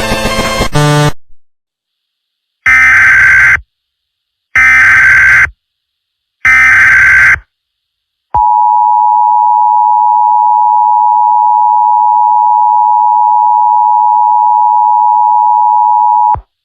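Emergency Alert System header: three screechy data-tone bursts of about a second each, evenly spaced, then the two-tone attention signal held steady for about eight seconds before cutting off suddenly.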